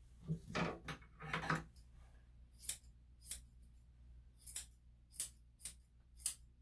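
Grooming scissors snipping: six sharp, crisp metallic snips spaced about half a second to a second apart, after a little over a second of softer rustling near the start.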